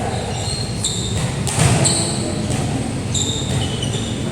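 Basketball game: sneakers squeak on the court floor several times in short high chirps, and the ball thuds once about a second and a half in, over steady background noise in a hall.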